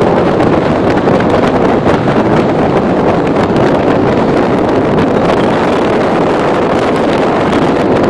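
Steady road and wind noise from a car driving at highway speed, with wind rumbling on the microphone.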